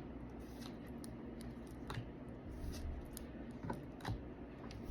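Pokémon trading cards being handled and flipped through, with soft, irregular clicks and flicks of card against card.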